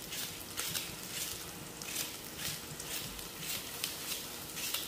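Kitchen knife slicing through a leek on a cutting board, crisp cuts at about two to three a second.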